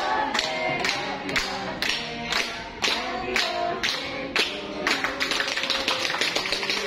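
Hands clapping in a steady beat, about two claps a second, along with a song with singing, as for a birthday celebration with the cake brought out.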